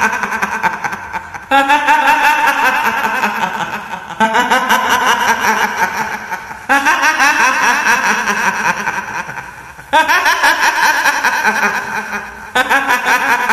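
A woman's cackling ghost laugh in the style of the kuntilanak. It comes in repeated bursts of about three seconds, each starting suddenly and sliding down in pitch as it fades, about five times in a row.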